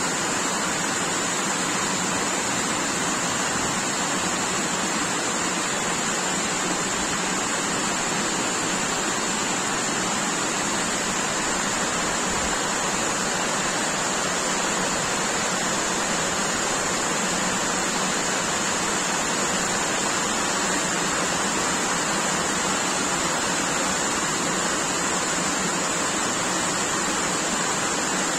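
Heavy rain pouring down steadily, a dense even hiss that does not let up.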